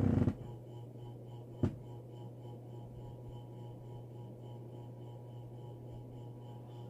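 Electric fan running with a steady hum and a faint rattle ticking about four times a second, the unwanted noise the fan has started making. A brief noise at the very start and a single sharp click about a second and a half in.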